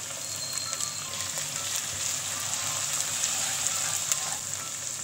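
Sliced onions with ginger-garlic paste and ground spices sizzling in plenty of hot oil in a pan, a steady dense crackle, while they are stirred with a wooden spatula.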